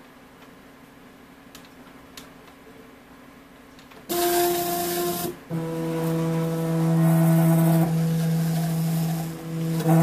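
Stepper motors of a small homemade CNC table (12-volt unipolar motors driven as bipolar) whining steadily as the axes move through a plot. After about four seconds of faint hum the whine starts abruptly, drops to a lower pitch about a second later after a short break, and runs on with a brief dip near the end.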